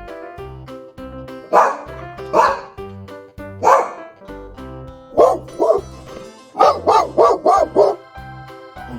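A dog barking over background music with a steady beat: single barks spaced a second or so apart, then a quick run of about five barks.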